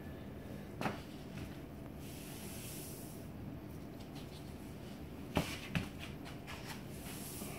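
Faint rubbing of a microfiber towel being pulled across freshly grouted tile, with three light knocks, one about a second in and two close together later on.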